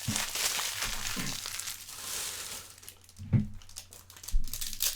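Foil trading-card pack wrapper being crinkled and torn open by hand, with a dense crackle over the first half that eases off later, then a couple of soft knocks. The pack is hard to open.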